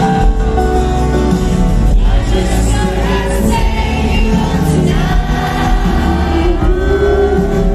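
Loud live concert music: an amplified band with singing over heavy, steady bass.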